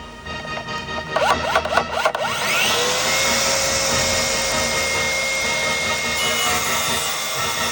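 Electric power saw spinning up about a second in with a rising whine, then running steadily at full speed, cutting wood.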